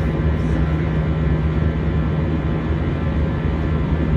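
Airbus A319 cabin noise heard from a window seat over the wing in flight: a steady jet engine drone and rush of air with a constant low hum, unchanging throughout.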